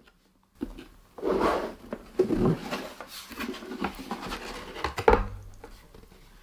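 A cardboard box being cut and opened by hand: rustling and scraping of cardboard and packing, with a sharp knock about five seconds in.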